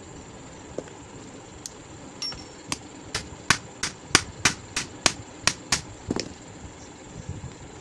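Small hammer tapping on a stand fan motor's ball bearing and its metal end housing: about a dozen sharp metallic strikes, roughly three a second, that stop a little past the middle.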